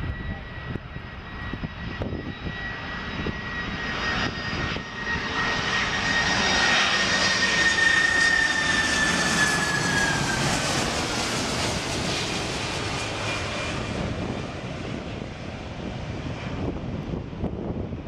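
Boeing 747-400's four General Electric CF6-80C2 turbofans at low approach power, landing gear down, passing overhead: a steady engine noise with a high whine that builds to its loudest about eight seconds in. The whine then drops in pitch as the jet goes by, and the sound fades.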